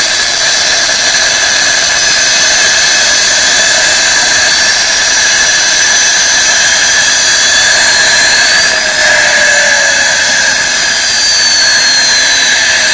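Simulated twin jet-turbine sound from a Benedini TBSmini sound module through a single 4-inch speaker in a Dynam Me 262 model. It is a steady, loud turbine hiss and whine, with two high whine tones gliding up and down against each other; one falls in pitch in the second half.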